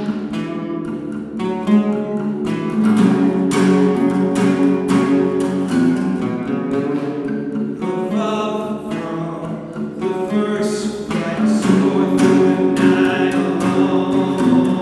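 Acoustic guitar being strummed, chords ringing steadily with an even rhythm, inside a grain bin.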